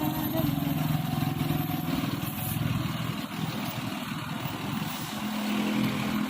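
Road traffic passing close by, with the low steady drone of a heavy vehicle's engine. The engine tone holds for about three seconds, and a second steady engine tone comes in near the end.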